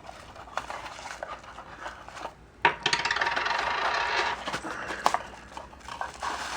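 A cardboard box being opened by hand: light knocks and scrapes, then about two seconds of loud rustling of packaging from a little before the middle, and a sharp knock near the end.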